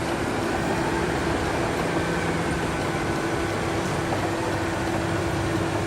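Bulldozer engine sound running steadily: an even, noisy drone with a low steady hum.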